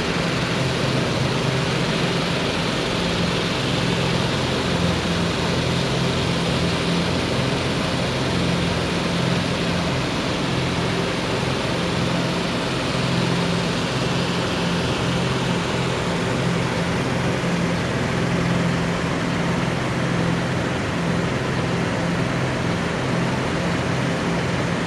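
Petrol-engine inflator fans running steadily, blowing air into hot-air balloon envelopes during cold inflation: a constant engine drone under a broad rush of air.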